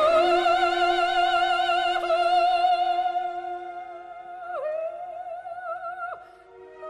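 Recorded operatic soprano holding one long high note with wide vibrato over sustained orchestral accompaniment. The note fades and breaks off about six seconds in, leaving the orchestra playing on.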